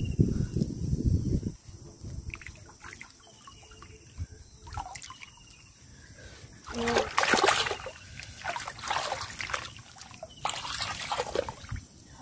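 Hands splashing and sloshing in shallow muddy water while grabbing a fish. There are small trickling sounds and two louder bursts of splashing in the second half.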